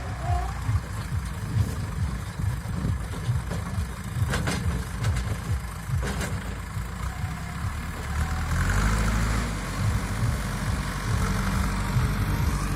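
Diesel engine of a JCB 3DX backhoe loader running at work, with two short knocks about four and six seconds in and the engine swelling briefly near nine seconds in.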